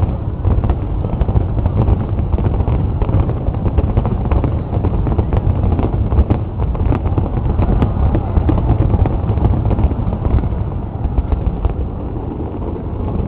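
Fireworks display: a dense, unbroken run of bursts and crackling bangs, with many sharp reports coming in quick succession.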